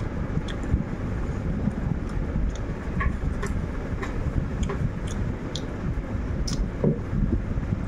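Steady low rumble with scattered small crunches and clicks from a crisp fried snack being picked off a tray and chewed.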